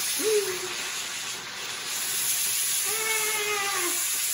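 Steam hissing steadily out of an Instant Pot electric pressure cooker's vent as its pressure is released.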